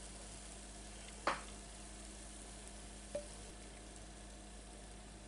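Waffle batter sizzling faintly as it is spooned onto a hot electric waffle iron, with two light taps of a spatula against a glass mixing bowl, one about a second in and a smaller one about three seconds in.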